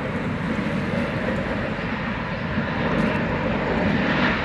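Steady, loud roar of heavy machinery at a scrap metal yard, an even rumbling noise without distinct knocks or breaks.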